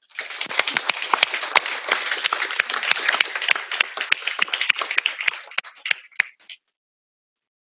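An audience applauding: many hands clapping, thinning out and stopping about six and a half seconds in.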